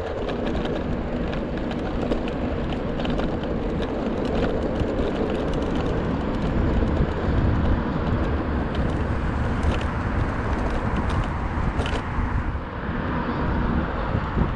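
Ride on a three-wheeled electric scooter: steady low rumble of the wheels on the road and air past the microphone, with a faint steady whine and frequent small clicks and rattles.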